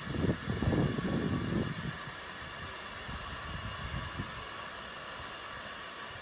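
V-TUF wet/dry vacuum cleaner running with a steady hiss and a faint motor whine, its hose drawing air. Irregular low rumbling for the first two seconds.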